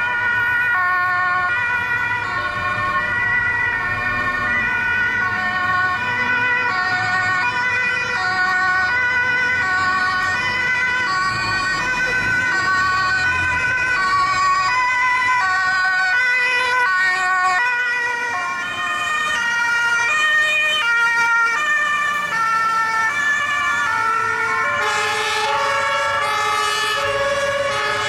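Two German fire engines, an HLF 20 rescue engine and a turntable ladder, sounding two-tone Martinshorn sirens. The two sirens run out of step, so their alternating high-low notes overlap, over the low rumble of the trucks.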